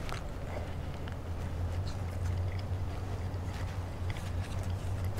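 A person chewing a mouthful of soft hot dog and bun, faint small wet mouth clicks, over a steady low hum.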